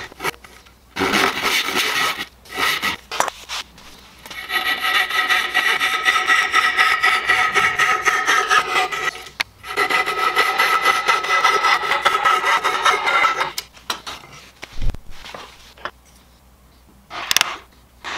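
Hand saw cutting dovetails in a hardwood board: a few short back-and-forth strokes, then a long run of steady sawing from about four seconds in, stopping a few seconds before the end. A single low thump and one last short scrape follow.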